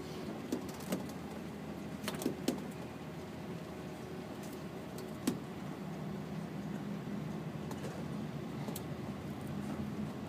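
Airport apron shuttle bus driving, heard from inside the cabin: a steady engine and road rumble whose hum grows a little stronger about six seconds in, with a few sharp clicks and knocks of rattling fittings.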